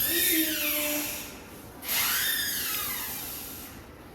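Two whooshing sound effects, each a sudden hiss with sweeping pitch that fades over about a second and a half; the second comes about two seconds in.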